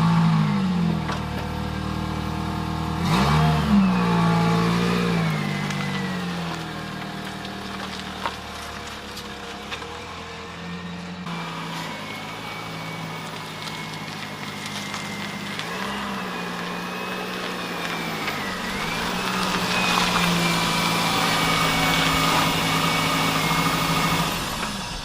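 Toyota Corolla XRS's 2ZZ-GE four-cylinder engine running, its revs rising and falling a few times, with a thin whine that follows the revs. The sound fades out near the end.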